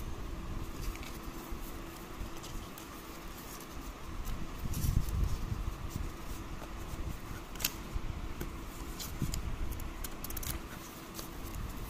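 A paper instruction leaflet and cardboard packaging handled close to the microphone: scattered rustles and small clicks, with a dull bump about five seconds in, over a faint steady hum.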